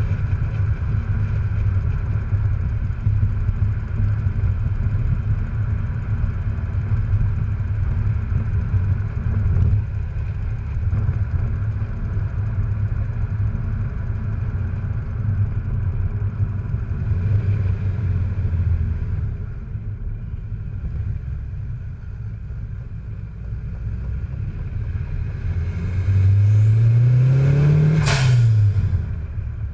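Modified, forced-induction Pontiac Fiero engine idling with a slightly uneven note, then revved once near the end, rising and falling in about two seconds with a faint high whine riding along.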